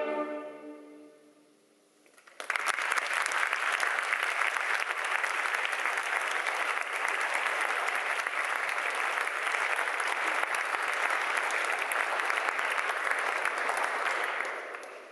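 The last chord of a string orchestra rings out and dies away in the hall. About two seconds in, audience applause starts abruptly and goes on steadily, fading out near the end.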